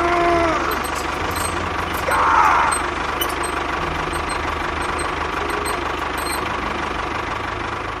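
Tractor engine running steadily with a low, knocking rumble, with a brief louder burst about two seconds in.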